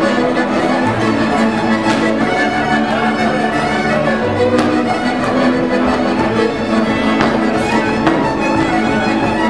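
Transylvanian Hungarian village dance music: several fiddles bowing the melody together, with a double bass playing the low notes underneath.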